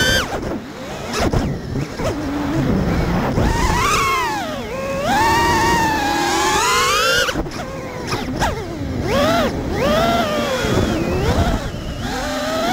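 FPV racing quadcopter's brushless motors and propellers whining, the pitch sweeping up and down as the throttle is worked, dropping briefly just after the start and again about halfway through. Wind rushes over the onboard camera's microphone underneath.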